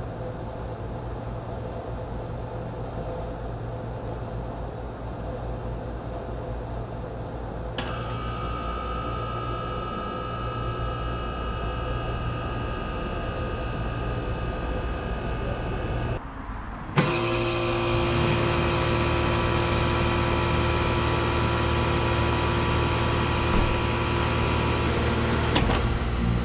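Outdoor air-conditioner condensing units running with a steady hum. About eight seconds in, another unit starts abruptly and adds several steady whining tones. After a brief break around sixteen seconds, a louder, different-sounding unit runs with a steady hum and whine.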